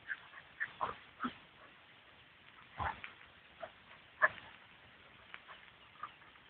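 Two dogs play-fighting, giving about eight short, sharp noises in quick succession, the loudest about four seconds in.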